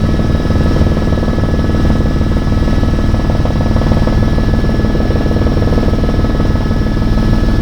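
Helicopter in flight: steady rotor and engine noise, a dense low drone with a rapid blade beat and two thin, steady high-pitched whines over it.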